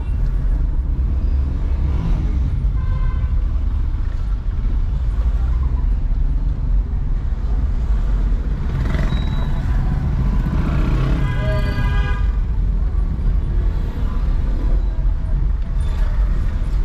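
Car driving through city traffic: a steady, heavy low rumble of engine and road noise.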